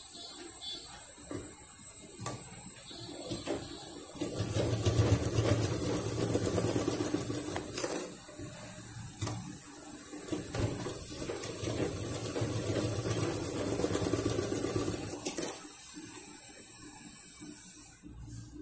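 Sewing machine stitching through the layered fabric, foam and lining of a pouch corner, in two runs of about four and six seconds with a short pause between. Fabric handling sounds before and after.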